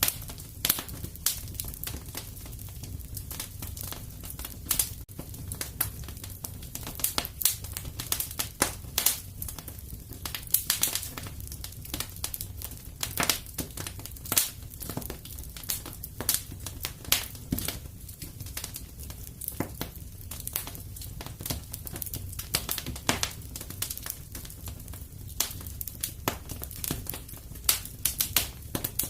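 Wood fire crackling and popping in a fireplace: many irregular sharp snaps over a low steady rumble of the flames.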